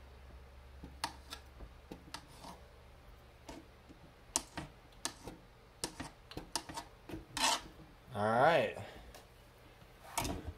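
Kitchen knife slicing through pheasant back mushroom pieces and tapping a plastic cutting board in irregular clicks. A short hummed voice sound comes about eight seconds in, and a heavier knock follows near the end.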